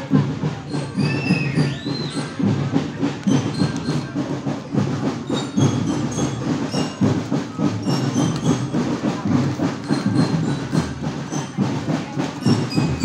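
Marching drum band playing a steady, dense drum rhythm.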